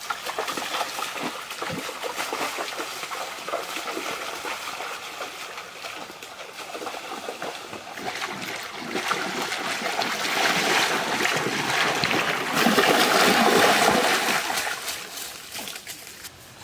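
Shallow rocky stream water trickling and splashing, growing louder for a few seconds past the middle before fading.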